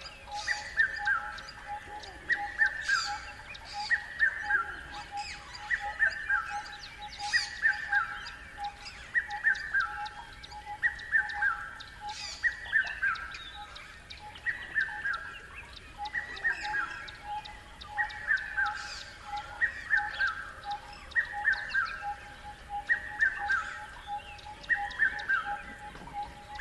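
River wildlife ambience: a call of quick falling notes repeats about once a second over a steady pulsing trill, with other bird calls now and then.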